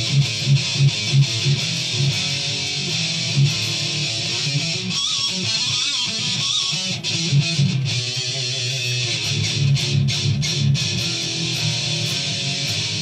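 Distorted electric guitar playing rhythmic chugging riffs, with a few wavering, bent high notes around the middle.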